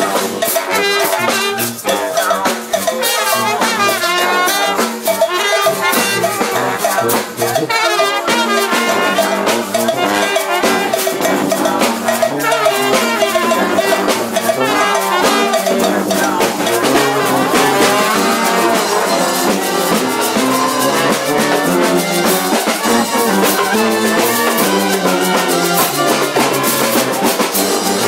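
Brass band playing live and loud: trumpets and trombones over a driving drum beat.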